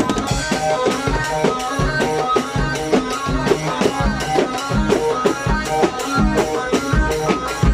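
Live band playing an instrumental passage: a drum kit keeping a steady, driving beat with bass drum strokes, under a melody line of held and bending notes.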